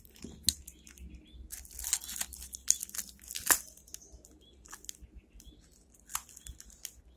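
Package wrapping being worked open by hand, crinkling and tearing in irregular sharp crackles that thin out after about four seconds.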